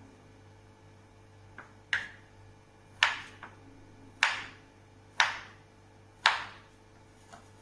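Kitchen knife slicing through a block of tempe and striking a wooden cutting board: five firm strokes about a second apart, with a few lighter taps around them.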